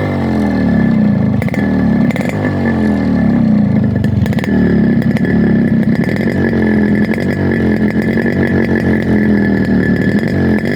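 Yamaha RX 100's air-cooled two-stroke single-cylinder engine running through its silencer: its revs fall away over the first couple of seconds, then it settles to a steady, slightly uneven idle.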